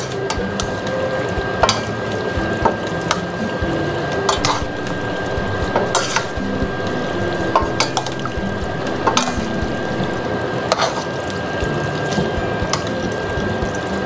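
A wooden spatula stirring and tossing fettuccine and seafood in a stainless-steel pan, with scattered knocks and scrapes of the spatula against the pan over a steady background hiss.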